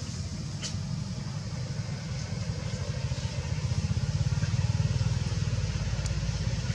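A motor vehicle's engine running steadily with a low rumble, growing louder about four seconds in, with a few faint clicks.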